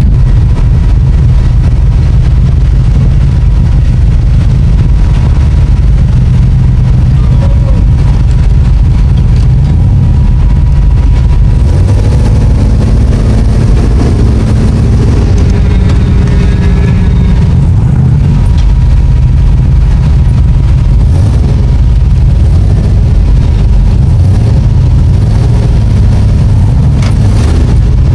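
Off-road vehicle engine running close by, a loud, steady low rumble with no clear revving.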